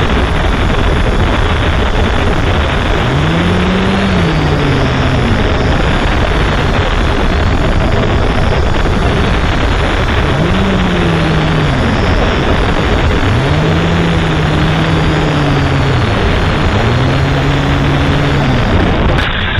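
Aircraft engine noise on a landing approach: a loud, steady rush with an engine tone that rises and falls several times as the throttle is worked. The rush changes abruptly near the end.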